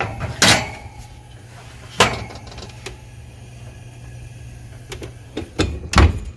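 A metal baking sheet knocks against the oven rack as it is set in and slid into a GE oven, with sharp clanks about half a second and two seconds in. Near the end come a few more knocks as the rack goes in, then the oven door shuts with a heavy thud, the loudest sound.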